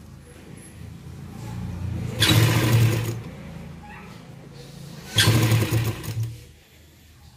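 Sewing machine stitching a seam in two short runs of about a second each, a couple of seconds apart.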